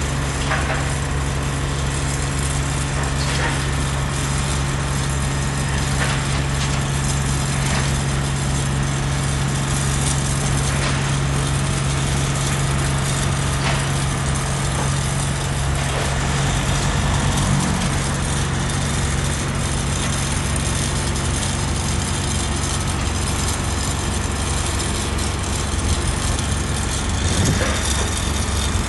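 Haulotte H21TX boom lift's diesel engine running steadily while the boom is worked, its note shifting a little over halfway through and again near the end.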